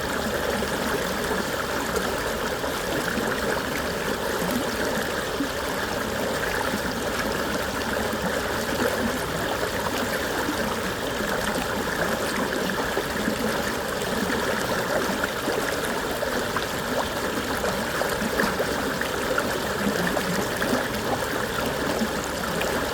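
Stream water running steadily over its bed, a continuous even rush of flowing, bubbling water.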